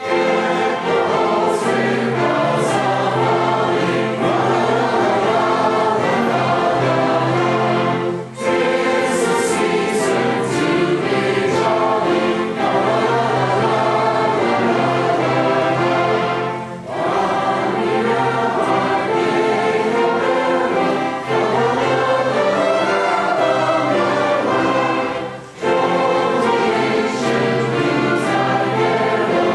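Choir singing with an orchestra, sustained chords that pause briefly three times.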